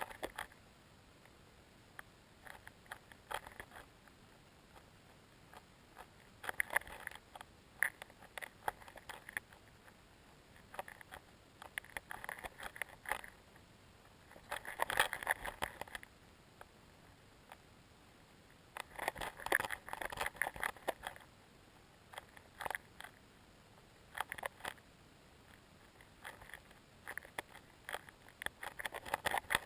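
Underwater recording over a stony lakebed: bouts of crackling and clicking that come and go every few seconds over a low hiss.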